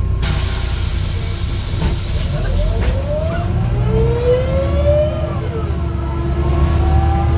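MAZ 203 city bus with a ZF six-speed automatic gearbox: a hiss of compressed air for about three seconds over the engine's low rumble, then the gearbox whine rising in pitch as the bus picks up speed, twice over.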